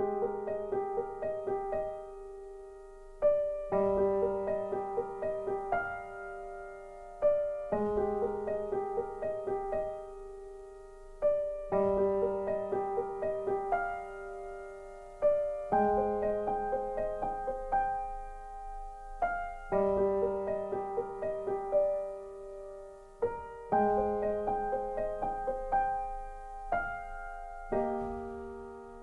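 Gentle instrumental piano music: flowing runs of notes, with a new phrase struck about every four seconds.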